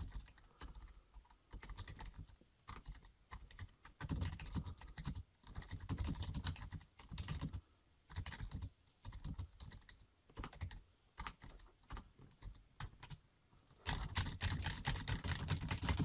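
Typing on a Rii RK100 raised-key membrane gaming keyboard with a mechanical feel: runs of key clicks with short pauses between words, ending in a fast, dense flurry of keystrokes as random keys are mashed.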